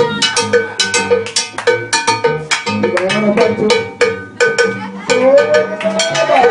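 Latin dance music with a cowbell keeping the beat over percussion, a stepping bass line and held chords; a voice sings over it near the end.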